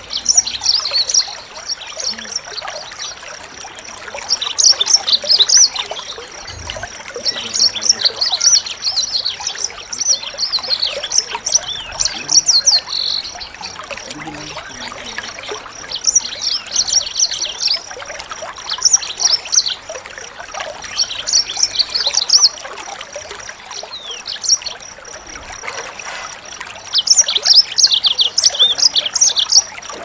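Small songbirds singing in repeated bursts of rapid, high chirps and trills, each burst a few seconds long with short pauses between. Underneath there is a steady hiss like trickling water and a thin, constant high tone.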